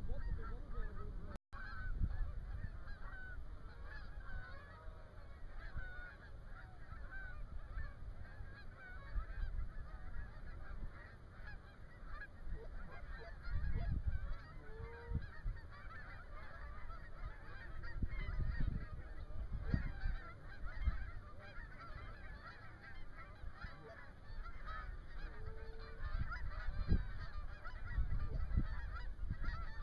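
Many geese honking continuously as a flock approaches, the calls overlapping and coming from a distance. Gusts of low rumble come and go underneath.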